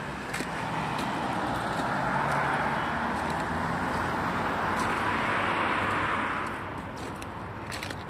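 A car driving past on the road: its tyre and engine noise swells over several seconds and fades about six and a half seconds in.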